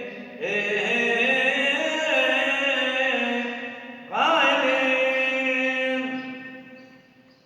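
A solo man's voice chanting a Christian vigil prayer in two long, drawn-out phrases, the second opening with a rising glide and fading away near the end.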